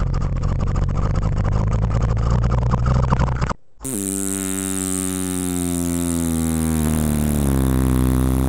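Excavator engine running with a steady low drone. About three and a half seconds in, it cuts to a second engine sound with a clearer tone whose pitch slowly drops.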